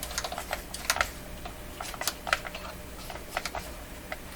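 Irregular run of light, sharp clicks, about a dozen, from the oscilloscope's snap switches being flicked through.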